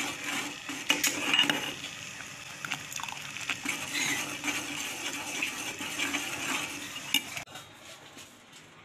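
A metal spoon stirring thick custard in a metal cooking pot, scraping and clinking against the pot's sides and bottom. The stirring stops abruptly about seven seconds in, leaving a quieter stretch.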